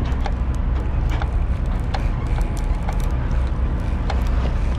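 Fishing boat under way at sea: a steady low rumble of engine and wind on the microphone, with scattered sharp clicks and knocks.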